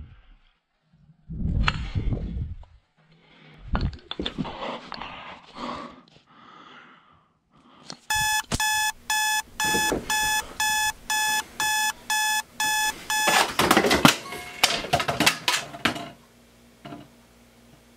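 Electronic alarm clock beeping in a fast even run of about two beeps a second for some five seconds, then stopping abruptly. A burst of loud rustling and knocks follows the beeping.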